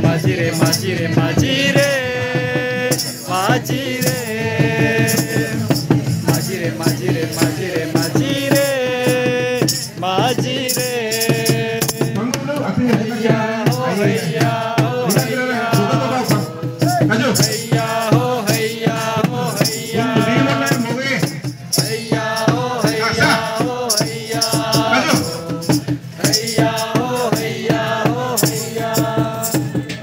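A group of voices singing along to rhythmic percussion: a drum with a shaken rattle keeping the beat.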